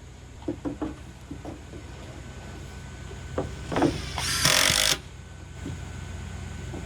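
A few light knocks of lumber being handled, then a short burst of a power drill driving a screw, about half a second long, a little over four seconds in.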